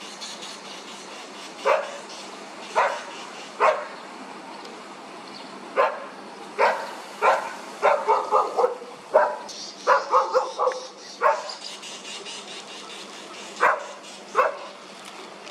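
An animal giving short, sharp, barking calls, about a dozen in all. Some come singly and some in quick runs of four or five, about halfway through.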